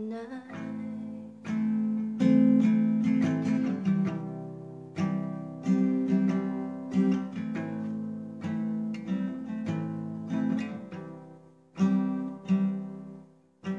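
Acoustic guitar strummed alone, with no singing: chords struck every second or so, each left to ring, with a short pause near the end.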